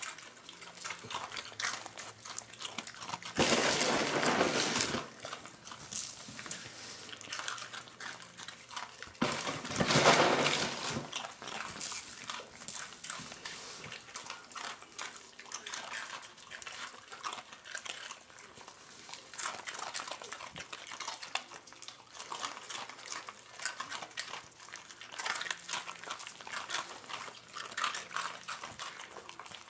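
Miniature pinschers eating Cheerios off a tile floor: many small crunches and clicks of chewing. There are two louder, rough noises from the dogs about 4 and 10 seconds in.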